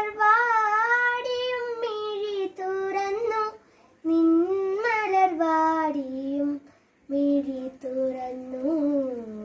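A young girl singing a Malayalam light song (lalithaganam) solo without accompaniment, in three gliding, held phrases broken by two short breath pauses.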